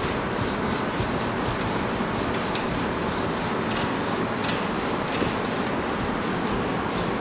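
Handheld duster rubbing across a whiteboard in repeated wiping strokes, erasing marker writing.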